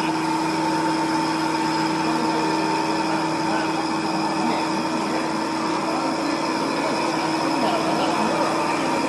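XH7145/VMC650 CNC vertical machining center running steadily, a constant machine whine made of several steady tones.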